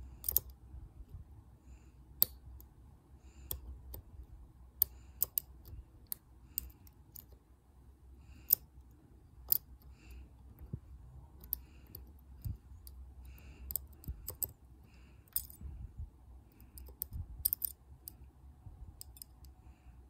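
Irregular sharp metallic clicks, roughly one or two a second, as a steel dimple pick works the pins inside a brass Burg-Wächter Boccia 450 dimple padlock. A faint low hum runs underneath.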